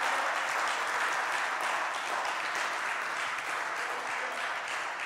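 Congregation applauding with many hands clapping, the applause slowly dying down.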